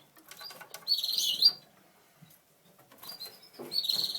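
Gloster canaries chirping in two short bursts of high, warbling calls, one about a second in and one near the end, with light rustling and scratching in the cage between them.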